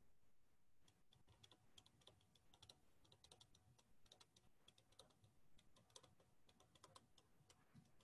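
Faint, fast, irregular clicking and tapping in small clusters.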